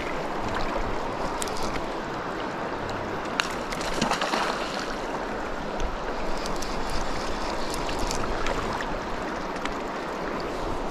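Shallow trout stream running over a rocky riffle: a steady rush of water, with a few light clicks on top.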